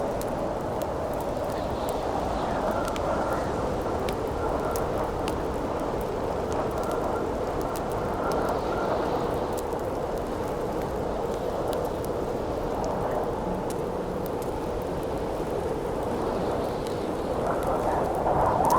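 Wind howling steadily over a campfire crackling, with sparse small pops from the fire; the wind swells in a gust near the end.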